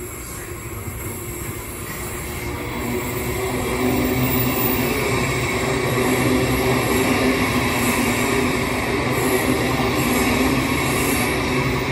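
Electric suburban passenger train running past close by, its noise building over the first few seconds and then holding loud and steady, with a low hum running through the rumble of the wheels.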